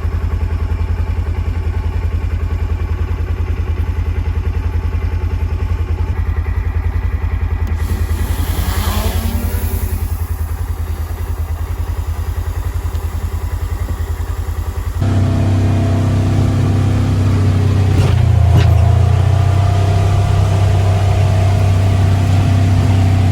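A vehicle engine running steadily while driving, a low rumble with an even pulse. About fifteen seconds in the sound changes abruptly, becoming louder with added steady hums.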